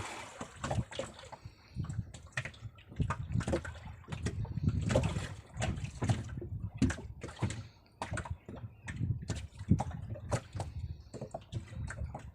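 Water sloshing and gurgling around a small fishing boat, with irregular knocks and bumps on the hull and deck.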